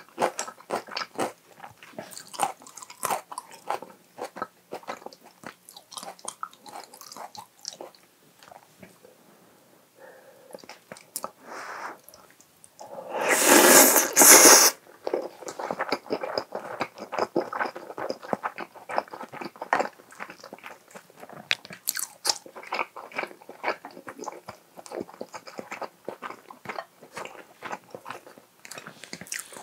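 Close-miked eating sounds: a person biting, chewing and crunching food, with many small wet mouth clicks. About halfway through there is a louder burst lasting a second or two as a big spoonful of rice goes into the mouth.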